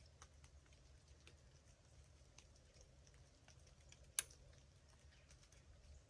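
Near-quiet outdoor air with faint scattered ticks and chirps, broken about four seconds in by one sharp click from a hinge release's clicker while the compound bow is held at full draw.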